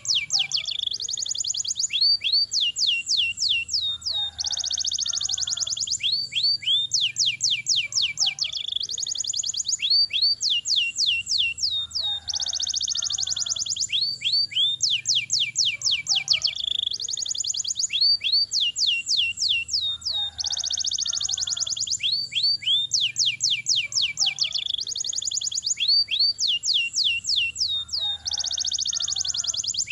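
Domestic canary singing long rolls: quick runs of rapid downward-sweeping whistled notes alternate with dense buzzy trills, the same sequence coming round about every four seconds.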